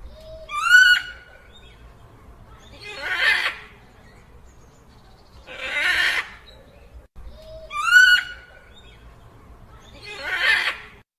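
Dinosaur call sound effect: a short, high, shrieking cry followed by two long, breathy, hissing calls, then the cry and one hissing call again; the sequence cuts off just before the end.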